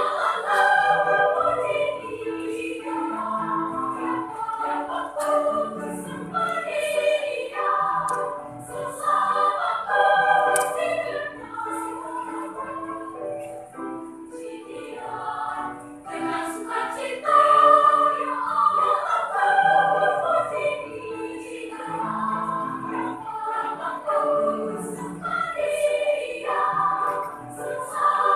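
Children's choir singing a sacred choral piece in harmony, phrase after phrase, swelling to its loudest passage a little past halfway.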